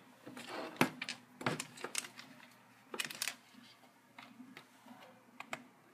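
Light clicks and knocks of a laptop power cord and plug being handled and plugged in, a few sharp clicks scattered through, with a small cluster about three seconds in.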